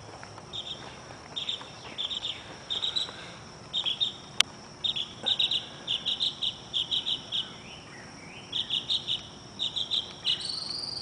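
Crickets chirping in quick groups of short pulses over a steady high-pitched insect drone, with one sharp click about four seconds in.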